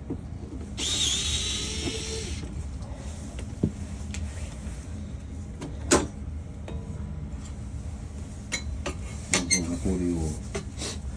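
A power drill-driver runs for about a second and a half near the start, then scattered clicks and knocks of parts being handled, with one sharp knock about six seconds in, over a steady low hum.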